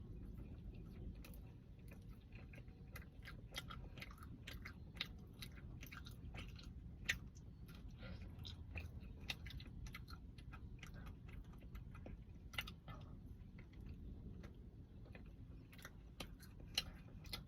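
Close-up chewing of a cookie: soft wet mouth clicks and smacks at an irregular pace over a low, steady background rumble.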